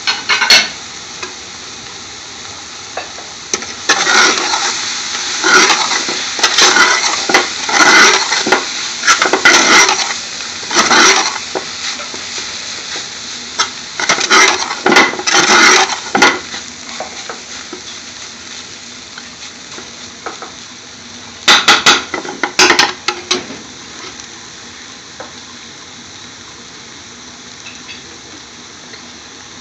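Spinach sizzling in hot oil with onions and garlic in a large aluminium pot. A metal spoon stirs and scrapes it around the pot in three noisy spells, and the steady sizzle carries on between them.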